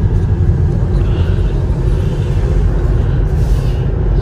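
Steady low rumble of road and tyre noise inside the cabin of a Tesla electric car cruising at about 54 mph, with no engine sound.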